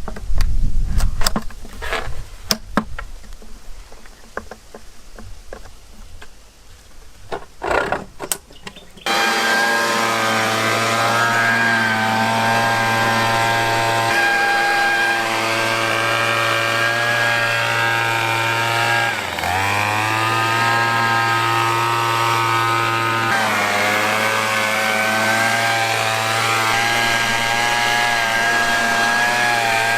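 Scattered knocks and clicks of handling, then, about nine seconds in, the Rover R2600 multi-tool trimmer's 25cc two-stroke engine running steadily at speed. Its pitch dips briefly and recovers about two-thirds of the way through.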